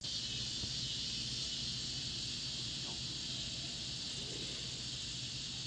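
Summer insects chorusing: a steady, high-pitched, unbroken drone of many insects calling together.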